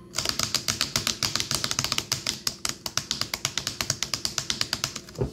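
Fast typing on an HP laptop keyboard: a quick, continuous run of key clicks that starts just after the opening and stops shortly before the end.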